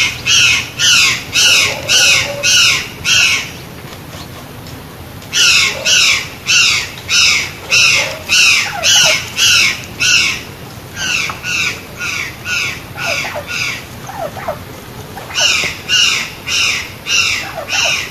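White-naped jay (gralha-cancã) calling: loud, harsh, crow-like notes repeated about three times a second, in runs of several seconds with short pauses between them.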